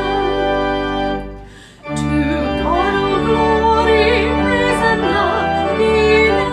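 Church organ playing a hymn with held chords. It stops briefly a little after a second in, then starts again with a singing voice over it.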